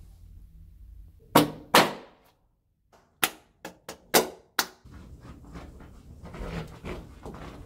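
Plastic film lid of a microwave ready-meal tray being stabbed through, giving sharp pops: two about a second in, then five more in quick succession a couple of seconds later, followed by rustling as the tray is handled.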